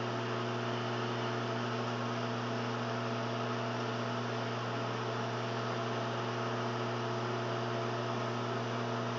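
A 1200-watt LG microwave oven running: a steady deep electrical hum with higher overtones over an even airy whoosh from its fan.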